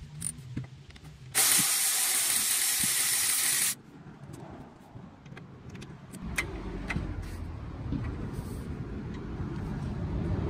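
A loud, steady hiss for about two seconds that cuts off sharply. Then low rumbling with scattered faint clicks as a power ratchet and 16mm socket on a long extension work a control arm bolt.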